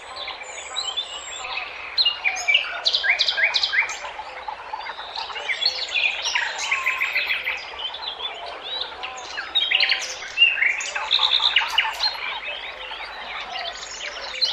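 Several small songbirds chirping and singing at once, with many quick overlapping chirps and rapid trills of repeated notes.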